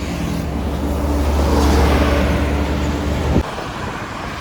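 A bus passing close on the road: a low engine drone with tyre and road noise that swells to its loudest about two seconds in. The low drone cuts off abruptly near the end.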